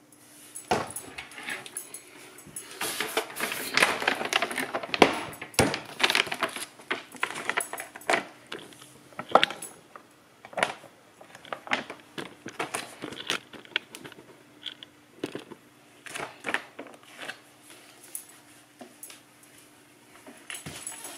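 A plastic dog-food bag being handled, crinkling and rustling, with scattered sharp clicks and rattles. The crinkling is densest and loudest in the first third, then thins out into separate clicks.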